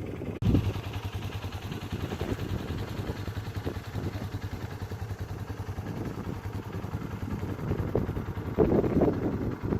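UTV engine running steadily, with a brief louder surge near the end.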